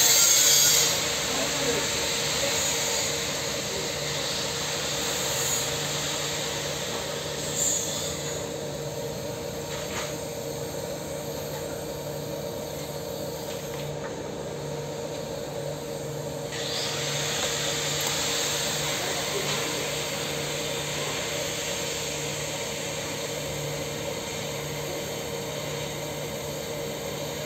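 Steady machinery hum with a hiss over it. The hiss thins out for several seconds in the middle, then comes back.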